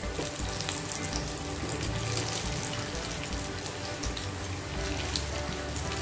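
Stuffed gujiya pastries deep-frying in hot oil in a kadhai: a steady sizzle with scattered small pops. The gujiya are light brown, done and ready to come out of the oil.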